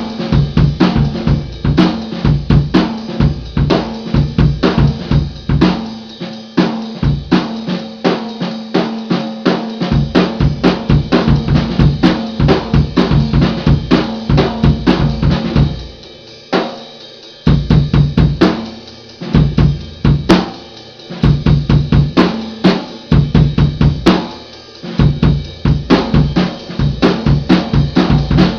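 Solo drum kit played continuously: a steady stream of bass drum, snare and cymbal strokes with fast fills. It drops back briefly about halfway through, then comes straight back in.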